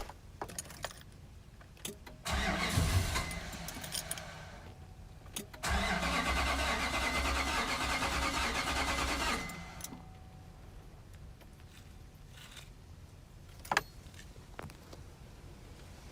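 2005 Nissan Titan's 5.6-litre V8 being cranked by its starter twice, a short try of about two seconds and then a longer one of about four seconds, without firing: a crank-no-start fault, which the owner suspects is fuel not reaching the engine or failed ignition coils. A single sharp click comes near the end.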